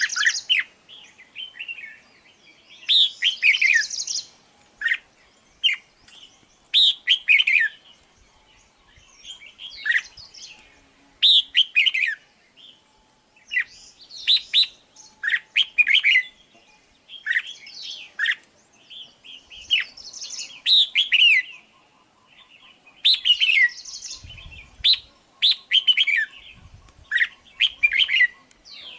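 Red-whiskered bulbul singing: short, chirpy warbled phrases repeated every second or two with brief pauses between them.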